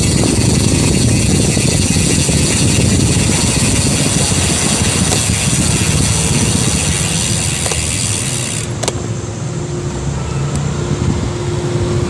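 Loud wind rumble on the microphone of a phone mounted on a moving bicycle's handlebars, mixed with motorcycle engines running nearby. A steady hum comes in about nine seconds in as the noise eases a little.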